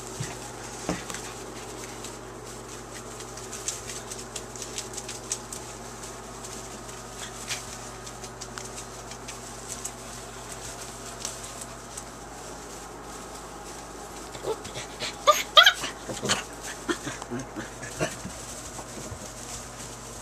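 Young puppies scrabbling in wood shavings, with a short burst of high-pitched yelps and whimpers about three-quarters of the way through.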